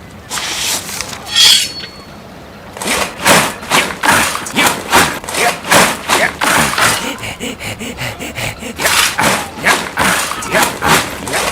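Cartoon sound effects: a fast, irregular run of knocks and thuds starting about three seconds in, mixed with wordless voice sounds.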